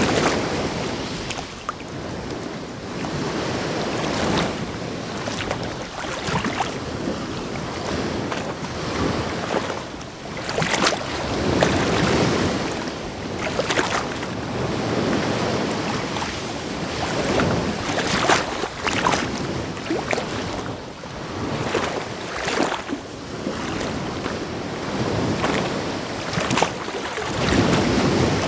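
Ocean waves breaking against rocks: a continuous wash of surf that swells and falls every few seconds, with sharper splashes as waves hit.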